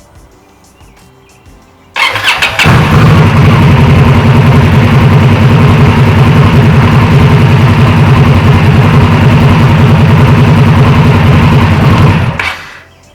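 Indian Scout Bobber's 1133 cc V-twin engine is started with the starter about two seconds in and catches almost at once. It idles loudly and steadily for about ten seconds, then is switched off near the end.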